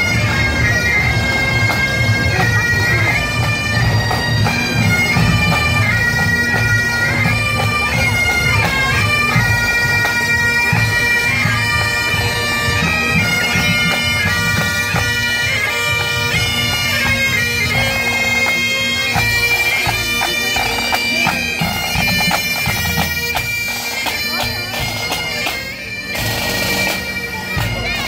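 Bagpipes playing a marching tune: a melody stepping from note to note over steady, unbroken drones.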